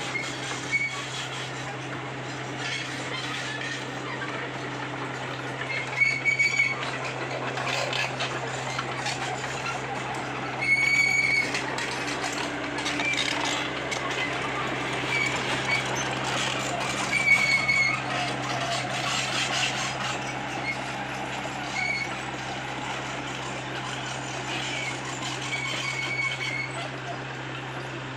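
Komatsu PC75UU excavator's diesel engine running steadily at work, with several short high-pitched squeals from the machine at irregular intervals.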